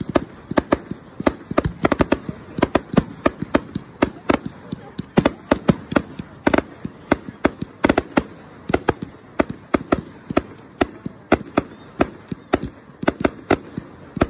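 Aerial fireworks firing shot after shot: a continuous, irregular string of sharp bangs and pops, several a second, with some much louder than the rest.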